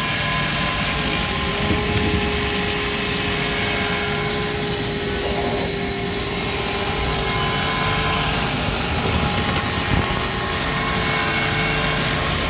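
Matsuura MC 560V vertical machining center running a part program: a steady mechanical hum with the whine of the spindle at speed. A clearer mid-pitched tone joins about a second in and drops out about seven seconds in.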